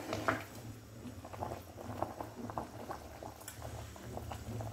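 Watery rice and hyacinth-bean mixture boiling in an open pressure cooker, with many small irregular bubbling pops and a spoon stirring through it at first.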